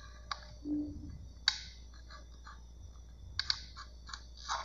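Small knife cutting thin strips of lemon peel on a cutting board: a few sharp clicks of the blade tip against the board, the loudest about a second and a half in and a quick run of three near the end.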